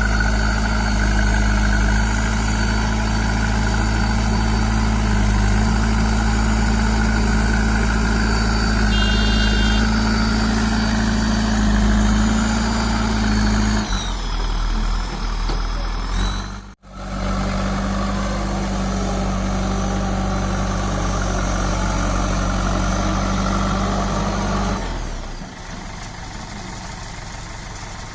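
JCB 3DX backhoe loader's diesel engine running steadily while it works. The sound briefly cuts out just past the middle, then carries on and drops to a quieter run a few seconds before the end.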